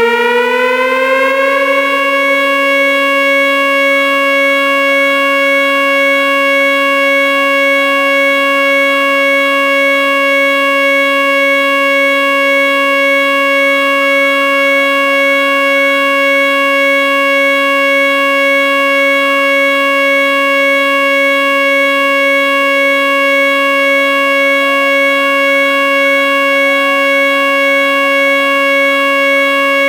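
Whelen WPS-2908 electronic outdoor warning siren sounding its steady Alert tone: the pitch rises briefly at the start, then holds at one level.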